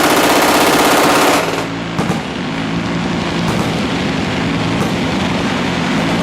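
Minigun firing tracer rounds in one continuous burst, so fast that the shots blur into a loud buzz, cutting off about a second and a half in; a steady rumble and background music go on after it.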